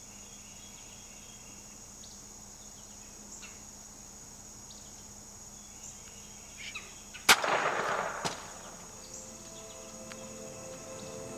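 A single loud gunshot about seven seconds in, followed by a short rolling echo, over a steady background of insects.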